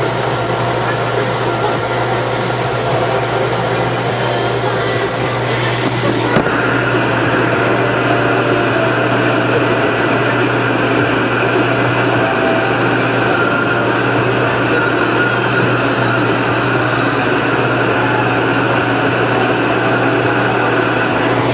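Tractor engine running steadily with an even drone, its tone shifting slightly after a small click about six seconds in.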